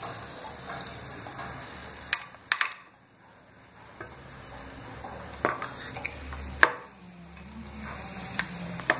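Dried tube-shaped papad (fryums) frying in hot oil in a pan: a steady sizzle, with several sharp clinks against the pan, the loudest a little past halfway.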